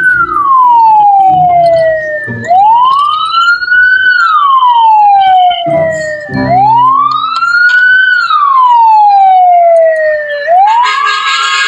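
Toy fire truck's electronic siren wailing, rising and falling in pitch about every four seconds. A fast pulsing beep joins it near the end.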